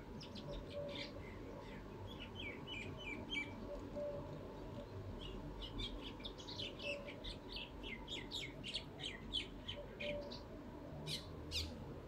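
Small birds chirping faintly outdoors: runs of short, high, falling chirps, a pause around the middle, then a quicker run and two longer calls near the end.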